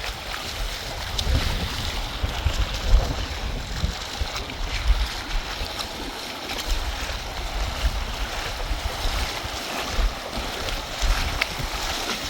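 Fast-flowing river rushing steadily, with wind buffeting the microphone in irregular low gusts.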